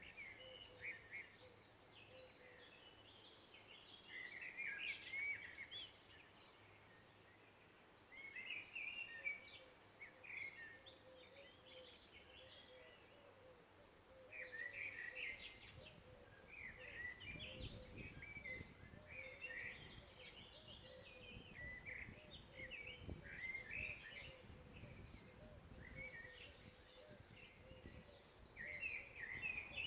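Forest songbirds singing in the morning: short, chirpy phrases repeated every few seconds. A low rumble comes in underneath about halfway through.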